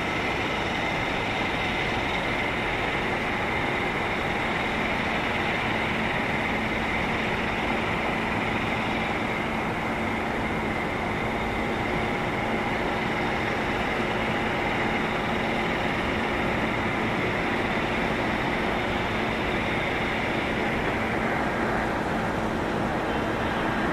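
Airbus A300-600F freighter on final approach, its twin Pratt & Whitney PW4158 turbofans giving a steady jet rumble with a high whine on top. The whine changes near the end as the plane comes in low over the runway threshold.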